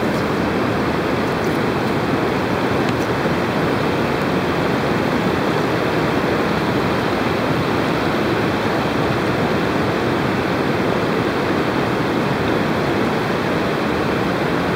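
River water rushing over a low concrete weir: a steady, loud rush.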